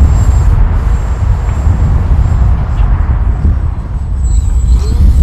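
Gusty wind buffeting the microphone: a loud, uneven low rumble.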